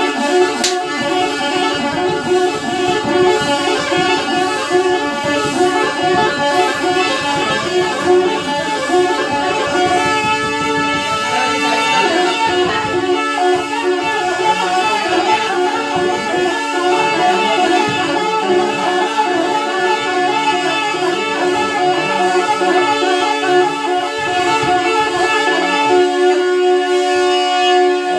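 Tarpa, the Adivasi gourd-and-bamboo wind instrument, playing a steady droning, rhythmically repeating folk tune.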